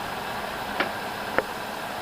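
Steady background hiss with two short sharp clicks about a second in, roughly half a second apart.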